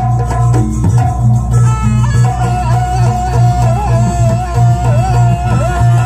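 Live jaranan music: loud traditional Javanese ensemble playing a steady, repeating drum-and-percussion rhythm with a deep pulsing beat, and a high melody line held and wavering with bends from about two seconds in.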